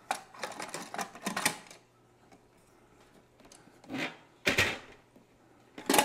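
Hard plastic parts of a Keurig coffee maker clicking and snapping in a rapid run as the top housing and handle are squeezed into place. Then three separate louder knocks as the plastic body is handled and set down.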